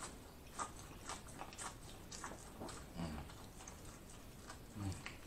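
Close-miked eating of buttered corn on the cob: kernels being bitten off the ear and chewed in quick crunching bites, about two a second. Two brief low hums from the eater come about three and five seconds in.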